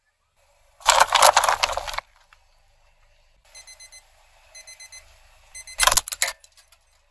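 Small battery alarm clock beeping its alarm in quick groups of four short high beeps, then a loud crunch as a car tyre rolls over and breaks it. About a second in, a separate loud rattling burst lasts about a second.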